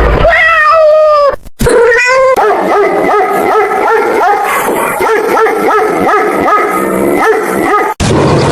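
A cat's meow, then, after a short break, a dog barking in a quick run of short yaps, about three a second, which stops abruptly.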